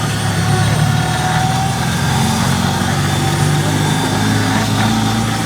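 A motor or engine running steadily at a constant speed, a loud low hum with a steady higher whine over it.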